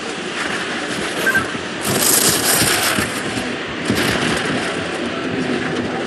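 Downhill race skis running fast on hard, icy snow: a steady rushing hiss, louder for about a second around two seconds in.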